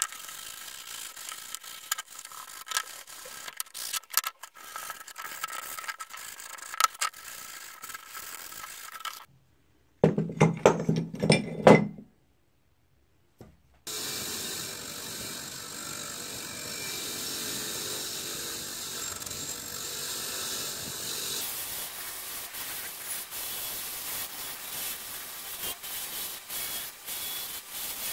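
Gears of an old breast drill turning with a rapid ratchet-like clicking. After a cut comes a short burst of loud knocks, then a long steady scrubbing hiss.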